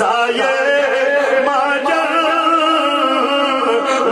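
A man's voice chanting through a microphone in a drawn-out, melodic recitation style, holding and bending long notes.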